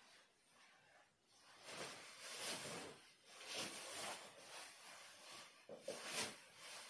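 Soft rustling of clothing fabric in several separate swishes as a jacket is put on and straightened.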